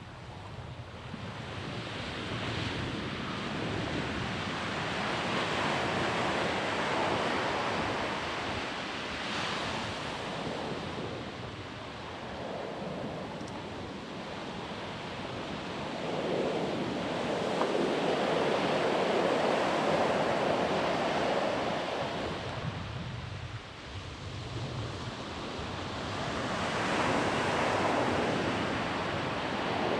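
Ocean surf: waves breaking and washing in, the rush swelling and fading in slow surges roughly every ten seconds.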